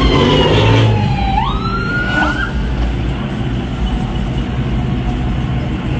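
Ambulance siren wailing in one slow falling tone that swings back up, gives a short yelp and cuts off about two and a half seconds in, over the low rumble of car engines in slow traffic.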